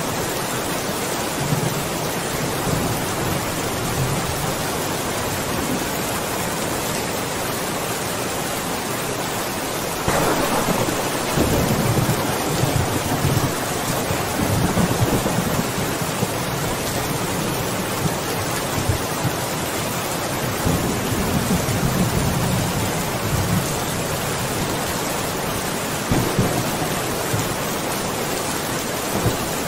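Steady rain falling, with a clap of thunder about a third of the way in that rumbles on for several seconds, and a weaker rumble of thunder near the end.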